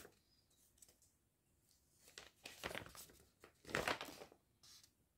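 A sheet of paper rustling as it is handled and turned, in a few short, faint bursts, the loudest about four seconds in.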